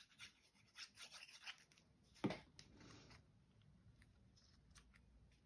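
Faint rustling and rubbing of paper as a glued strip of paper is laid on and pressed down by hand, with one light tap a little over two seconds in.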